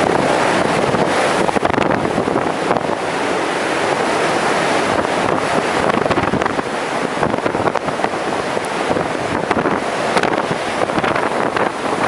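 Strong typhoon wind blowing in gusts and buffeting the microphone, loud and continuous with frequent sharp rushes.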